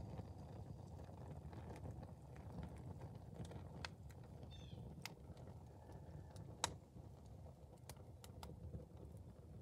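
A plastic alarm clock burning in an open fire: scattered crackles and pops over a low, steady rush, with one sharper pop about two-thirds of the way through.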